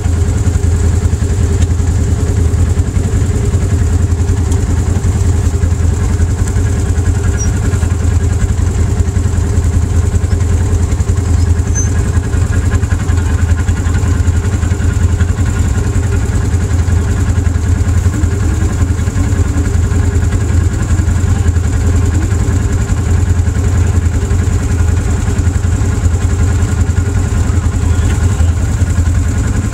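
Off-road vehicle engine idling steadily: a loud, even low drone with no revving.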